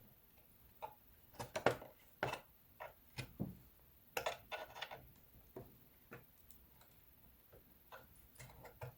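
Scattered light clicks and taps of hands and small tools working on the opened plastic housing of a drone radio controller, coming irregularly in small clusters with short quiet gaps.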